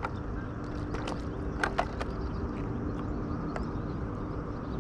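Steady low outdoor rumble with a faint, even hum underneath, broken by a few light clicks, the loudest two close together a little under two seconds in.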